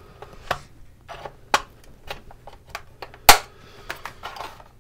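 Irregular plastic clicks and knocks as a pry tool works at the seam of a vintage alarm clock's plastic case while the clock is handled and turned, with the loudest knock a little past three seconds in and a little scraping after it.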